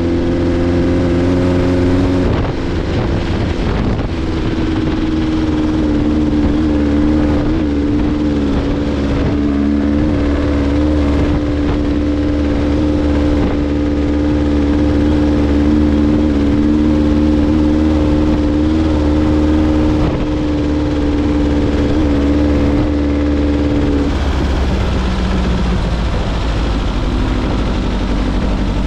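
Open dune buggy's engine running at a steady cruising speed over a desert dirt trail, with wind and tyre noise. The engine note dips briefly about two seconds in, then holds steady before dropping lower near the end.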